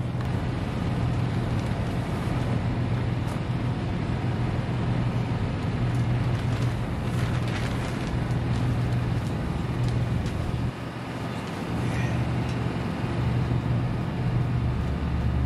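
A steady low hum with an even hiss over it, dipping briefly about eleven seconds in.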